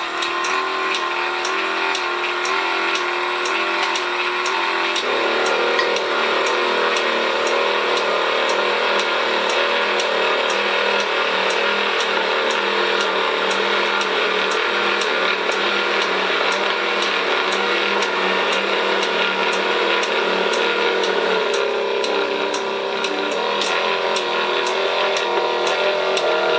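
Two DUCATI SW7000 swing-gate actuators running as a steady electric motor whine while their screw rods extend; the sound thickens about five seconds in, as the second actuator starts after the first, and shifts again near the end. A regular ticking, about two a second, runs over it.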